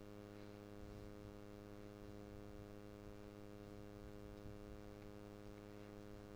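Near silence with a faint, steady electrical hum and its overtones from the audio line.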